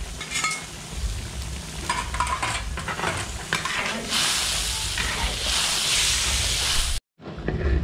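Metal spatula stirring and scraping through braised tofu in an iron wok while the sauce sizzles; about four seconds in the sizzle swells into a loud hiss for a few seconds, then the sound cuts out for an instant near the end.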